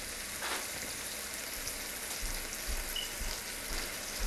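Shredded chicken and vegetables in a creamy sauce sizzling steadily in a pot on a gas burner, with a single sharp tap right at the end.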